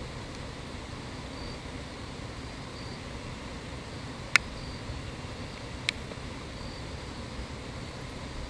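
Insects chirping faintly, a short high chirp repeating about once a second over a steady low background hum. Two sharp clicks about a second and a half apart near the middle are the loudest sounds.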